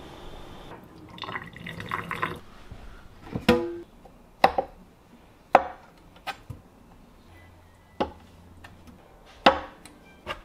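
Water bubbling in a pot of blanching seaweed and limpets for the first couple of seconds. Then a chef's knife cutting blanched limpets on a bamboo cutting board, with sharp knocks of the blade on the wood about once a second from about three seconds in.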